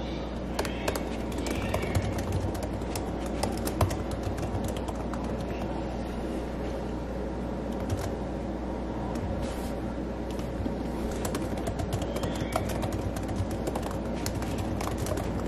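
Fingers typing fast on a MacBook's laptop keyboard: a quick, irregular stream of soft key clicks over a steady low hum.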